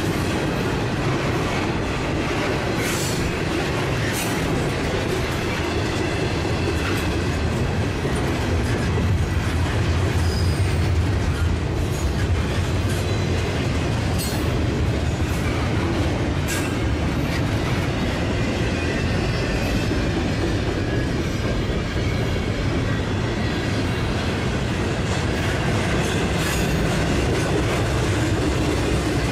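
Freight cars of a long CP freight train rolling past on steel wheels: a steady rumble with a sharp click or clank now and then as the wheels cross the rail joints.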